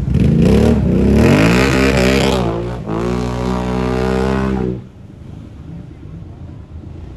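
ATV engine revving hard, its pitch climbing, then held at high revs as the quad ploughs through deep river water. About five seconds in the sound drops suddenly to a much quieter, duller rush.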